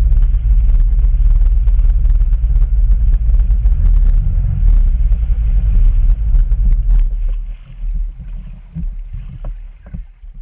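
Jet ski ride: a loud, steady rumble of wind and water rushing over the microphone with the watercraft running, dotted with splash clicks. It eases off in uneven surges after about seven seconds.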